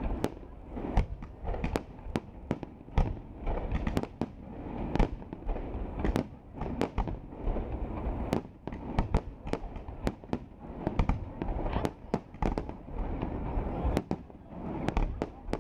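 Aerial fireworks display: a fast, irregular run of shell bursts and bangs, often several a second, over a continuous low rumble.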